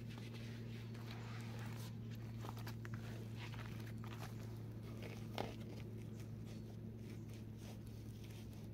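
Rustling and light knocks of a backpack being slung off the shoulder and handled, with a few footsteps on the forest floor, over a steady low hum.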